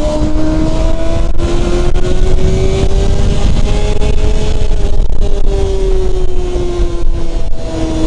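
Motorcycle engine pulling hard at high revs, its pitch climbing slowly for about four seconds, then easing back and holding steady. Heavy wind rush on the microphone at road speed.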